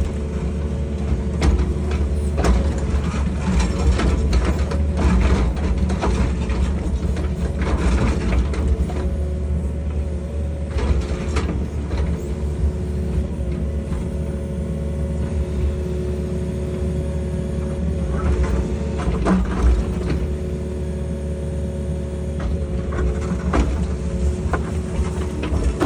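Excavator running steadily with a whine from its hydraulics, while the bucket digs and scrapes through soil and rubbish with many irregular knocks.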